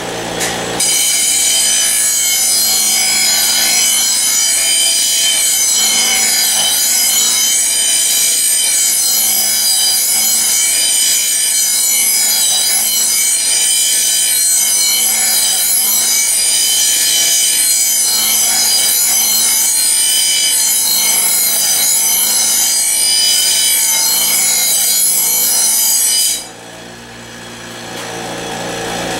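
Delta bench grinder's stone wheel grinding the edge of a steel commercial mower blade: a loud, steady, harsh grinding with a high ringing whine, as the blade is pressed to the wheel about a second in and held there. Near the end the blade comes off the wheel and the grinding stops suddenly, leaving the grinder motor running free.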